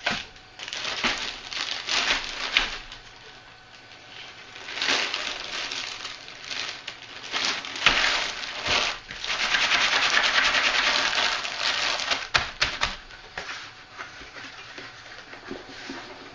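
Crinkling and crackling of a plastic bag of cardboard jigsaw puzzle pieces being handled and pressed into a cardboard box, with the loose pieces shifting inside the bag. The crinkling is densest from about nine to twelve seconds in, followed by a few light knocks as the cardboard box is handled and its lid fitted.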